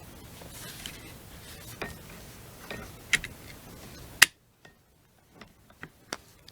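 Small metal clicks and taps of a lever-action .22 rifle's trigger and lever mechanism being handled and fitted into the receiver, with one sharp click about four seconds in.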